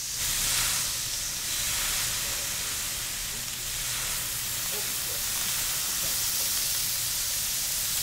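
Sliced raw duck meat sizzling on a large hot iron griddle: a steady frying hiss that starts as the meat is tipped on and is strongest about half a second in, with a low hum underneath.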